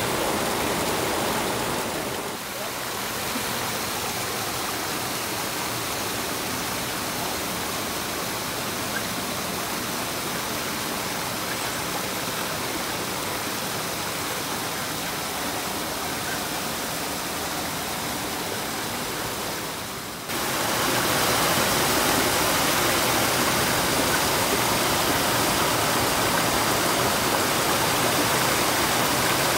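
Rushing river water, a steady hissing noise that dips a little about two seconds in and grows louder about twenty seconds in.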